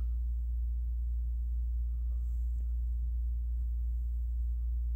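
A steady low hum with nothing else of note: the recording's constant background hum between the narrator's words.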